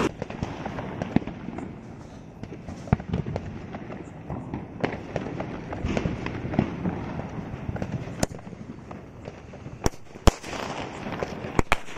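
A 12-shot aerial firework cake firing: a crackling hiss with scattered small pops, then from about two-thirds of the way through, sharp cracks of the shots going off, several in the last few seconds.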